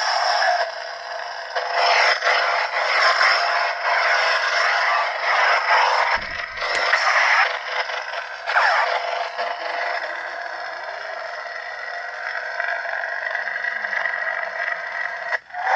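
Replica lightsaber's built-in speaker playing its blade sound effects: a continuous hum with swells as the saber is swung, starting suddenly and cutting off abruptly near the end.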